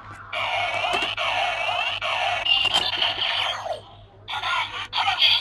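DX OOO Driver toy belt playing electronic sound effects and music through its small built-in speaker, with gliding synthesized tones, in one long spell and then shorter bursts near the end.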